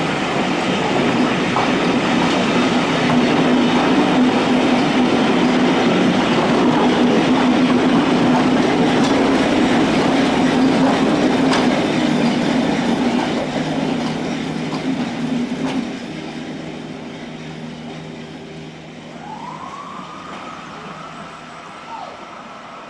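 Heritage passenger train passing close by, coach wheels clattering over the rail joints, with the rear Class 73 electro-diesel locomotive going past on its diesel engine. The sound is loud and steady, then drops sharply about sixteen seconds in and fades as the train draws away.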